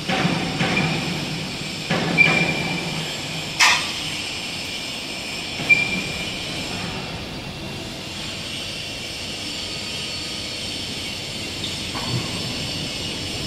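A fiber laser tube cutting machine running with a steady mechanical hiss. Sharp metal clanks come about 2 s, 3.5 s, 6 s and 12 s in, the one near 3.5 s the loudest, and short high squeals come near 2 s and 6 s.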